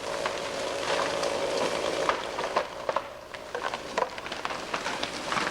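Twigs, bark and debris pattering and crackling down through the forest just after a tree has come down, as irregular sharp taps and cracks. A faint steady hum runs under the first couple of seconds.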